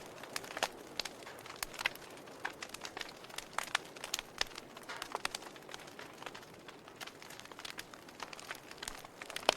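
Wood fire crackling: irregular sharp pops and snaps from burning logs, several a second at times, over a soft steady hiss of flame.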